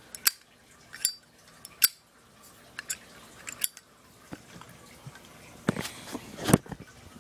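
Brass Zippo lighter's hinged lid flicked open and snapped shut several times, a series of sharp metallic clicks and clinks with a cluster of handling clicks near the end. The lid's clink is what the owner says tells a genuine Zippo from a fake.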